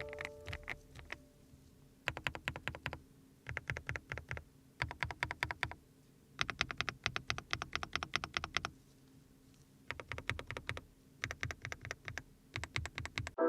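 Typing on a GX87 SE CNC-aluminium custom mechanical keyboard: fast runs of keystrokes, about eight short bursts separated by brief pauses.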